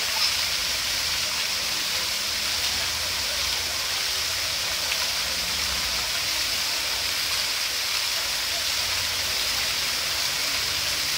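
Water from a large multi-jet park fountain splashing steadily into its basin: an even, constant rush of falling water.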